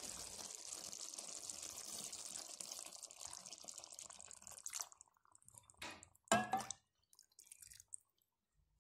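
Masala water hitting hot chicken curry gravy in a pan, a steady hiss that stops suddenly about five seconds in, followed by a few knocks from utensils, the loudest about six and a half seconds in.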